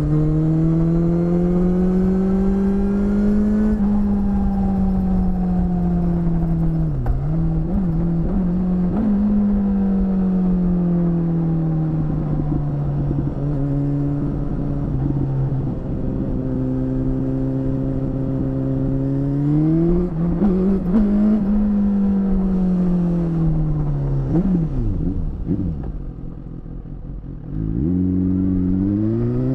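BMW S1000RR's inline-four engine with an Akrapovič exhaust, heard from the rider's seat. It pulls up through the revs, with sharp drops in pitch at gear changes about four, seven and nine seconds in, then eases off and holds a steady cruise before rising and falling again. Near the end it drops quieter with a few short revs on the overrun, then accelerates away again, with wind rushing over the microphone.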